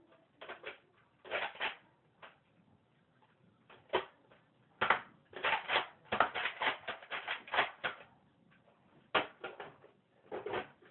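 Nerf dart blaster being cocked and fired, a series of sharp plastic clacks and snaps, scattered at first and then in a quick run of clacks through the middle.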